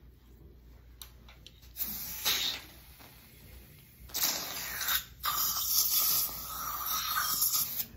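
Hissing spray from a dental instrument working in the mouth: a short burst about two seconds in, then a longer one from about four seconds to near the end, with a brief break near the start of the longer burst.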